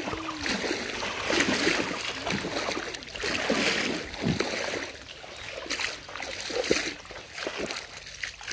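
Shallow pond water splashing and sloshing in irregular bursts as a man wades through it and throws a cast net into it.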